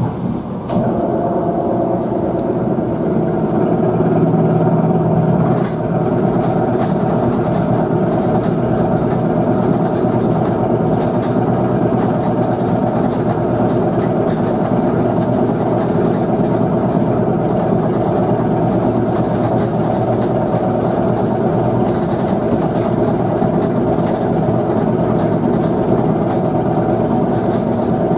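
ET2M electric train running at speed, heard inside the carriage: steady rumble of wheels on rails with a humming drone, growing louder about a second in. A faint high whistle stops about five seconds in.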